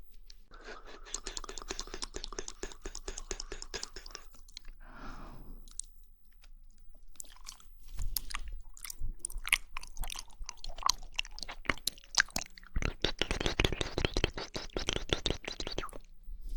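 Close-miked wet chewing of jelly, with dense runs of fine squishy clicks and smacks in two stretches, from about half a second to four seconds in and again from about thirteen to sixteen seconds in, with sparser mouth clicks in between.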